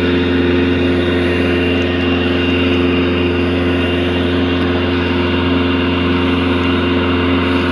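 Motorboat engine rumbling steadily, holding one even pitch without revving.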